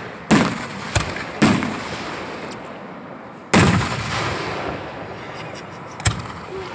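Aerial fireworks shells bursting overhead: five sharp booms, three big and two smaller, each followed by a fading echo.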